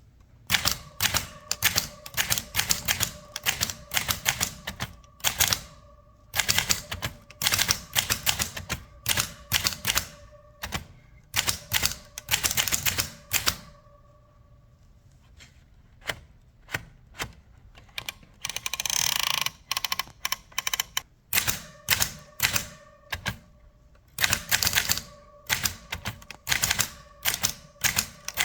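1938 Remington Bantam portable typewriter being typed on: quick runs of key strikes broken by short pauses, with a carriage return lasting about two seconds about two-thirds of the way through.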